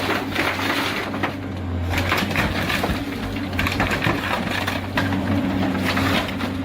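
Terminator 6000 single-shaft shredder running under load, its 518-horsepower engine giving a steady hum beneath continuous crunching and cracking as bulky waste and wood debris are torn up in the chamber.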